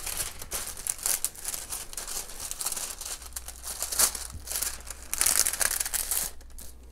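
Clear plastic protective film on a glue-covered diamond painting canvas crinkling and crackling irregularly as it is peeled back and smoothed by hand.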